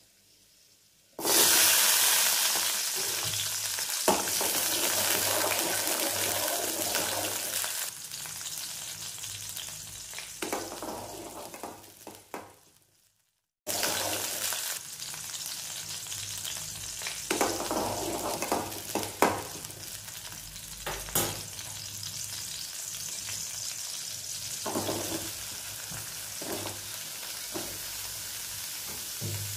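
Shallots and ginger frying in hot oil in an aluminium kadai, later with cubes of raw papaya. A loud sizzle starts suddenly about a second in. A metal spatula scrapes and clinks against the pan as the pieces are stirred, and the sound cuts out briefly near the middle before the sizzling and stirring resume.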